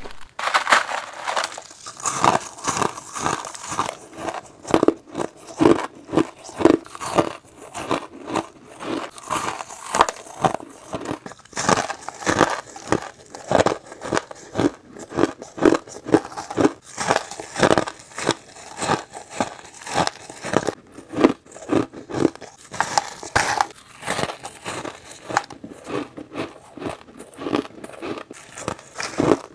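A person biting and crunching mouthfuls of crushed ice chunks, close to a clip-on microphone: repeated crisp, crackling bites, one to two a second.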